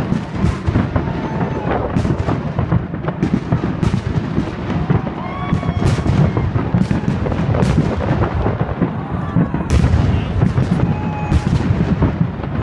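Fireworks display: a rapid, continuous barrage of bangs and booms over a rolling rumble, with a cluster of the loudest bursts about ten seconds in.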